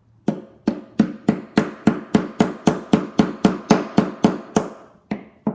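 Quick, even taps on a small nail set against the retaining pin of a Buick key fob, driving the pin back in to hold the key blade; about three taps a second, then two more after a short pause near the end.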